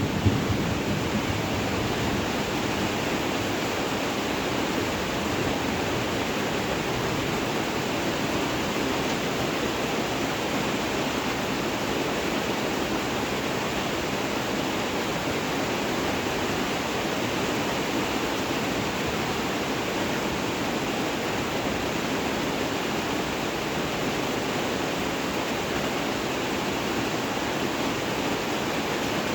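Steady rain falling, an even unbroken hiss. The tail of a thunder rumble fades out right at the start.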